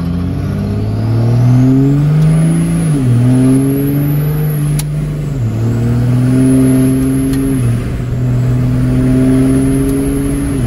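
5.9 Cummins turbo-diesel heard from inside the cab, accelerating hard and shifting up through the gears: the engine note climbs, then drops at each upshift, three times. A high turbocharger whistle rises and falls with each pull.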